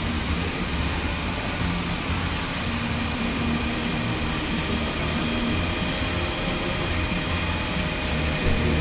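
Tiered fountain's jets splashing steadily into the stone basin, a constant rushing of falling water, with a low rumble underneath.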